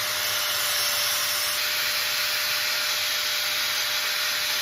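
Small power cutting tool running steadily while it cuts down the air cleaner's stem, a hissing grind with a faint steady whine.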